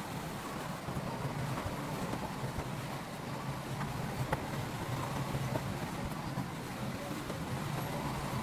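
Heavy diesel construction machinery running steadily at a work site, with a few light knocks over the engine.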